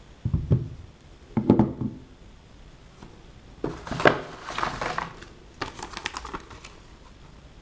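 Two soft knocks as objects are set down on a table, then a paper instruction leaflet rustling and crackling for a few seconds as it is pulled out and unfolded.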